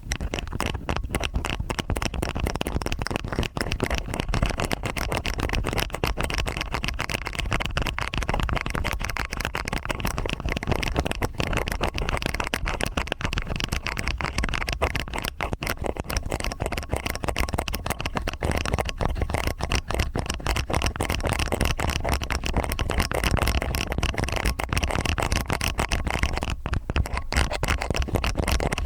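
Stainless steel ear picks scraping and scratching in both ears at once, a dense stream of rapid crackly scratches that goes on without a break.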